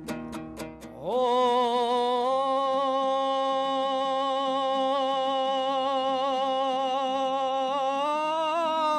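About a second of strummed plucked strings, then a singer holds one long wordless note with a slight vibrato for some eight seconds, lifting in pitch near the end.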